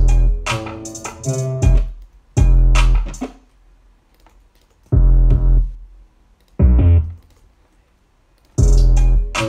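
Trap beat playing back from music-production software: a deep 808 bass under a plucked melody with crisp percussion. It cuts off and starts again several times, with a couple of second-long gaps of near silence.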